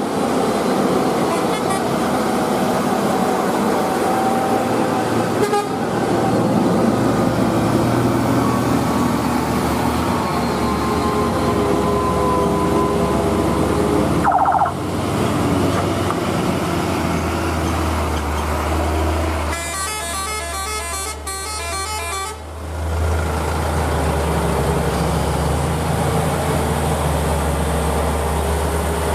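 Heavy truck diesel engines running steadily under load on a steep climb, with a deep continuous drone.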